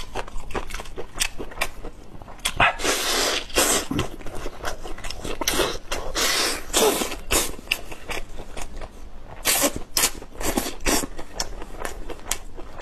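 Close-miked eating sounds of a man biting and chewing meat off glazed pork rib bones: irregular clicks and smacks of the mouth, with several longer noisy stretches as he works the meat from the bone.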